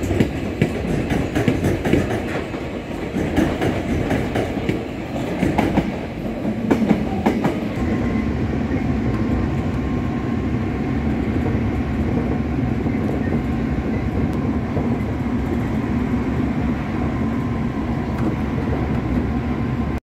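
Electric trains running on rails. For the first several seconds the wheels clack irregularly over rail joints and points; after that there is a steady running noise with a faint steady whine.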